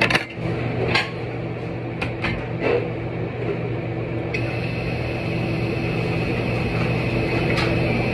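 A steady machine hum with a few sharp knocks in the first three seconds; a steady hiss joins about four seconds in.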